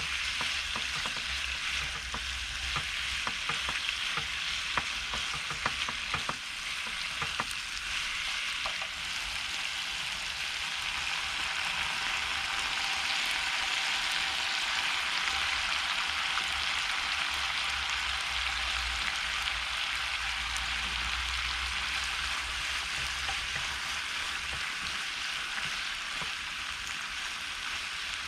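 Food sizzling in a frying pan, with a steady hiss. Through the first several seconds a utensil clicks and scrapes against the pan as the food is stirred, then it settles to an even sizzle.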